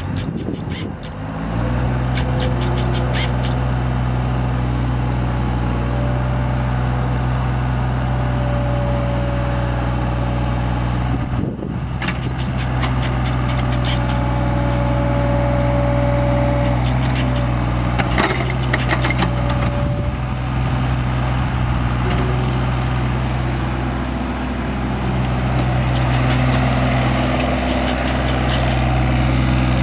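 2008 Komatsu PC27MR-3 mini excavator's three-cylinder Yanmar diesel running steadily under working throttle, picking up about a second and a half in. A higher whine comes and goes several times as the machine works its arm and tracks, with a few sharp metallic clanks around the middle.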